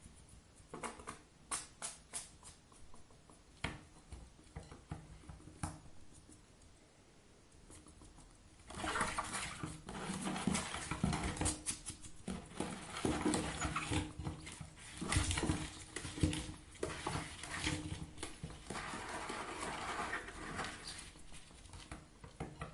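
Hedgehog moving about in a bathtub, its feet and claws tapping and scrabbling on the tub. There are scattered single taps at first, then much busier, continuous scrabbling from about nine seconds in.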